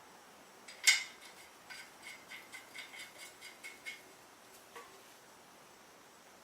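A sharp metallic clink, then a quick run of light metallic ticks for about two seconds: steel wheel studs being handled and threaded by hand into the wheel hub.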